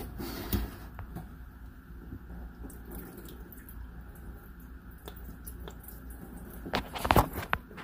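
Water trickling and dripping through an Ice-O-Matic ice machine's drain fitting and clear plastic drain tube as the drain is flushed to check that it runs clear. A short cluster of sharp knocks comes near the end.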